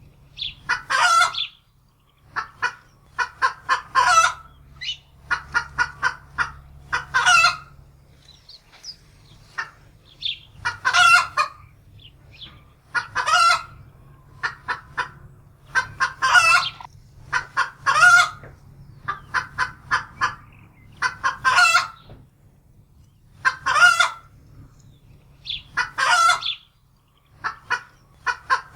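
Domestic hen cackling in fright: runs of short clucks, each ending in a loud, drawn-out squawk, repeating every two to three seconds.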